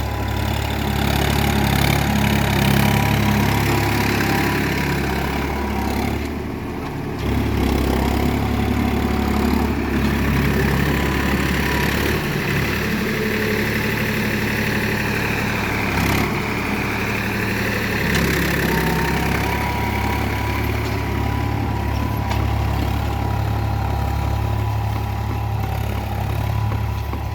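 Swaraj 963 FE tractor's diesel engine running steadily as it pulls a plough through a field, dipping briefly in level about six seconds in.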